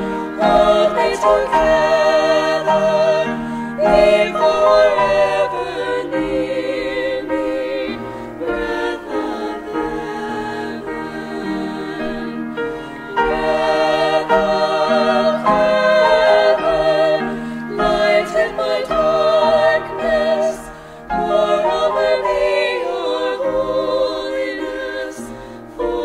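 Vocal trio singing a sacred Christmas song in harmony, voices wavering with vibrato, over a sustained instrumental accompaniment, with short breaks between phrases.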